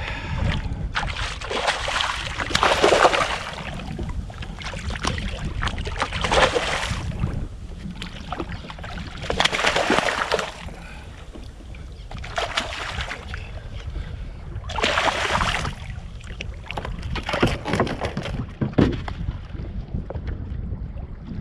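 Wind rumbling steadily on an action-camera microphone aboard a fishing kayak, with about six irregular short swishing noises.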